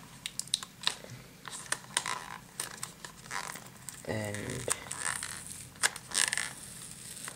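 White card packaging being pried open and handled: paper and card rustling and crinkling, with many quick scrapes and small clicks and a brief tearing sound.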